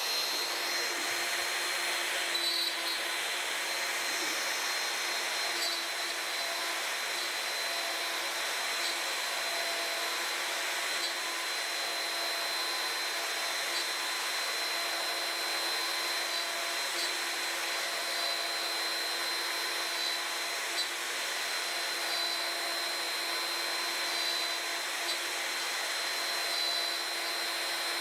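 CNC router spindle running at speed with its end mill cutting into fibreboard: a steady high whine over the rush of the cut, unchanging throughout.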